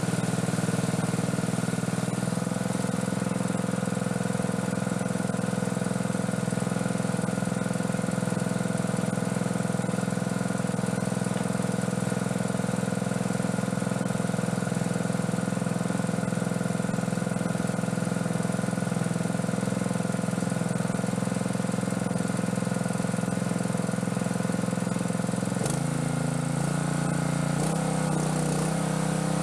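Small gasoline-engine water pump running steadily at a constant speed while dewatering a swamped boat. Near the end its engine note shifts and there are a few knocks, then it settles back into a steady run.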